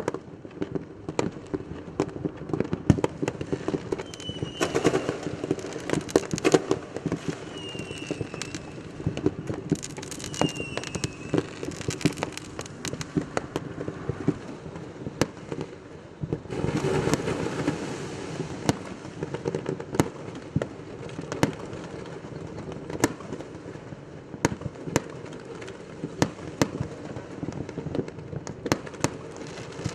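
Fireworks going off: many sharp bangs and pops, with a denser spell of crackling a little past halfway and a few short falling whistles in the first half.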